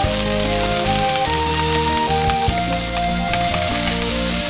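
Food sizzling steadily in hot oil in a wok as it is tipped in and stirred with a metal spatula. Background music with a melody of held notes plays along.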